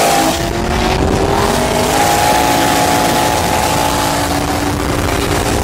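Modified, nitrous-fed C5 Corvette Z06 LS6 V8 pulling hard at full throttle, heard from inside the car. Its pitch shifts with gear changes near the start and about two seconds in, then holds a steady high drone over road and wind noise.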